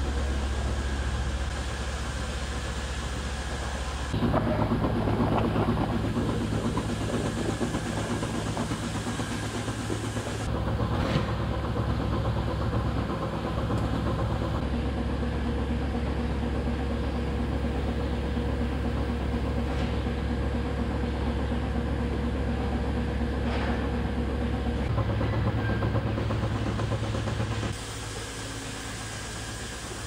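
Steady low hum and hiss of milking-parlor machinery, changing abruptly in pitch and level several times.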